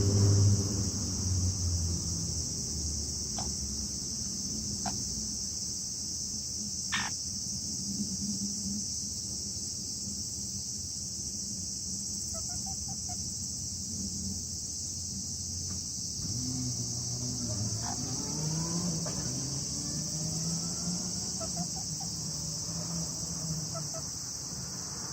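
Steady high-pitched insect chorus, with a few faint short chirps and some soft low calls in the latter half.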